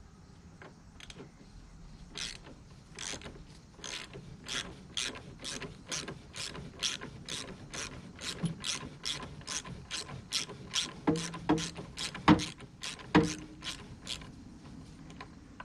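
Hand ratchet clicking steadily, about two and a half clicks a second, as an 18 mm engine mount bolt is backed out. A few louder knocks come near the end.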